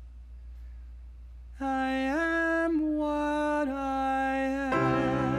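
A man's singing voice comes in about a second and a half in, holding long steady notes that step up and down in pitch. Lower accompanying notes join near the end, where the voice starts to waver.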